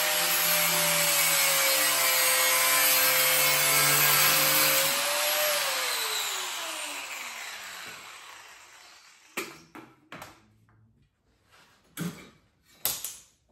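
Angle grinder running against sheet steel with a loud hiss. About five seconds in it is switched off and its pitch falls as it winds down over a few seconds. A few sharp knocks of metal being handled follow.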